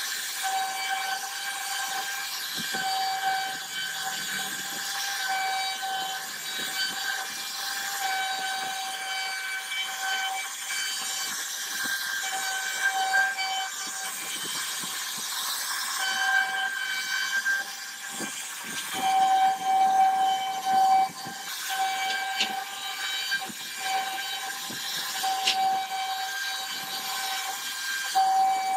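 CNC router spindle whining at a steady high pitch while its bit carves grooves in a wooden panel, with a rough cutting hiss beneath. The whine and cutting noise swell and fade as the bit works, loudest about two-thirds of the way through.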